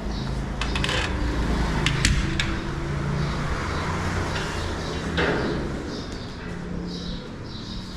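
Electric sliding-gate motor running as the gate rolls along its track: a steady low hum, with a few sharp clicks and knocks about one to two and a half seconds in.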